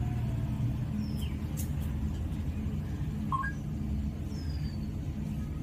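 Steady low background rumble, with a few faint short chirps and a faint falling whistle in the middle.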